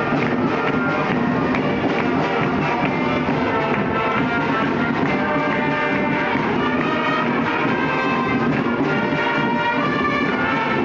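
School marching band playing a piece on brass and drums, steady and loud throughout.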